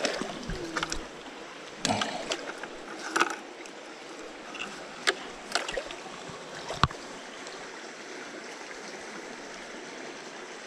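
Steady rush of flowing creek water, with scattered sharp clicks and short rustles of hands working a fish out of a rubber-mesh landing net and fishing line. The clicks fall in the first seven seconds or so, after which only the water is left.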